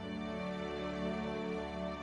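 Background music: slow, sustained chords in a soft, sad mood.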